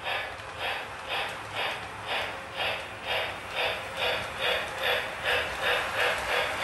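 Steam chuffing from the sound system of a Lionel LionChief O-gauge Hogwarts Express locomotive running around its track, an even beat that quickens from about two to nearly three chuffs a second as the train gathers speed.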